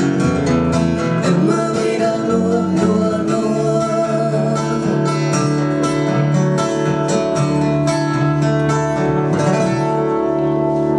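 Live band music: acoustic guitar strumming chords at a steady pace.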